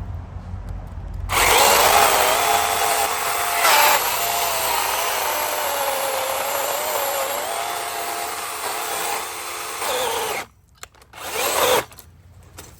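DeWalt FlexVolt cordless chainsaw cutting through a tough, dry oak branch. The motor and chain whine starts about a second in and wavers in pitch as the chain loads up in the wood, then stops after about nine seconds. It runs again briefly near the end.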